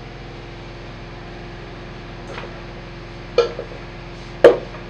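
Stainless steel cooking pot and lid clanking twice as the lid is handled to open the pot, the second clank louder, over a steady background hum.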